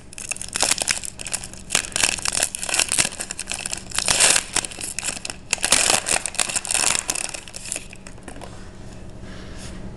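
Foil trading-card pack wrapper crinkling and tearing as it is ripped open by hand, in irregular loud rustles that stop about eight seconds in.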